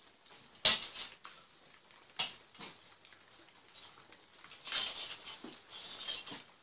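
Metal tools or parts being handled: two sharp clinks about a second and a half apart, then a couple of seconds of rattling and scraping.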